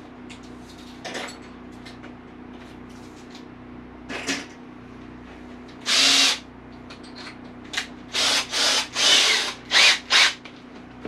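Cordless drill run in short trigger bursts: brief whirs about one, four and six seconds in, then a quick run of about six short bursts near the end.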